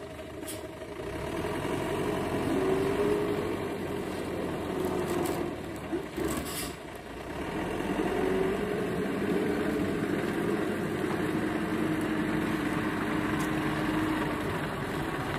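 Truck engine running steadily, its pitch wavering slightly.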